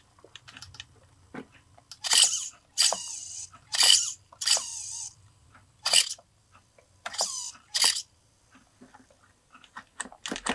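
Steering servo of a Thundertiger SSK nitro RC monster truck whirring in short bursts, about seven times, as it swings the steering back and forth. A faint low hum and small clicks lie between the bursts.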